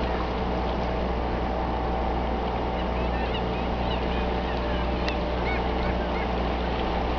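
Steady low hum of a running boat engine, with scattered short high bird chirps in the middle.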